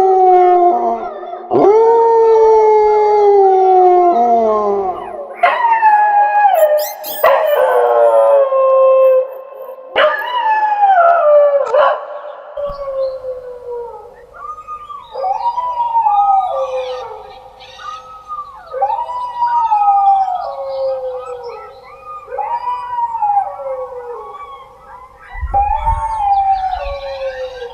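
Dogs howling: long howls that slide down in pitch, with several voices overlapping in the middle stretch. After that come shorter howls that rise and fall, about every two to three seconds.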